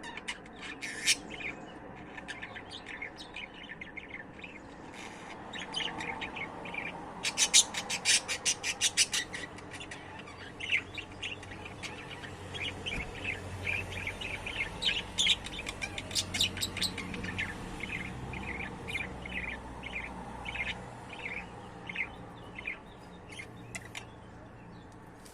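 Budgerigars chirping: a long string of short, quick chirps, busiest and loudest about a third of the way in.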